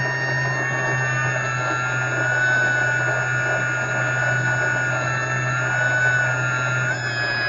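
Electric motor and propeller of an FMS Cessna 182 RC model plane, a steady whine with a low hum. Its pitch drifts slowly up and down with the throttle and steps up near the end.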